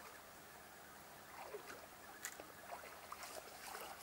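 Faint, irregular splashing and small clicks of water at the shore begin about a second in, over a faint steady low hum.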